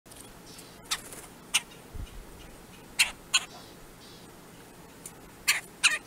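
Short, sharp bird calls, six of them and mostly in pairs, over a faint steady hiss.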